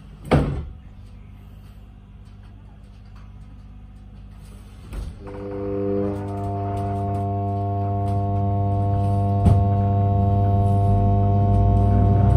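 An electric multiple-unit train's doors shut with a loud thud just after the start. About five seconds in, its traction equipment starts up with a steady, organ-like hum of several fixed tones that grows louder as the train pulls away from the platform.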